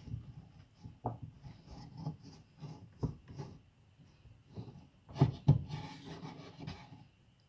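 Irregular knocks, clicks and rubbing from hard objects being handled up close, with two louder knocks a little past five seconds in followed by a brief scratchy rubbing.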